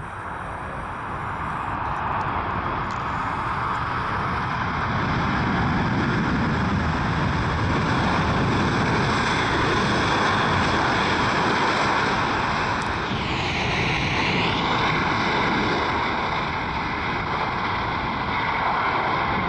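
Antonov An-124 Ruslan's four D-18T turbofan engines running loud as the freighter rolls out along the runway after landing. The noise swells over the first few seconds and then holds steady, with a brief sweeping whoosh about two-thirds of the way through as the aircraft passes.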